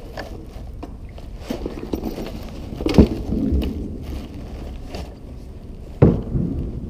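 Knocks and rustling from gear being handled in a plastic sit-on-top kayak, echoing inside a concrete sewer pipe. There are two sharper thumps about three and six seconds in, over a low steady rumble.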